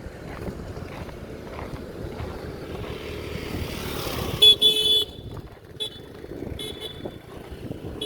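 Road traffic with a vehicle passing, then a vehicle horn honking: one loud toot of about half a second some four and a half seconds in, followed by a couple of shorter toots.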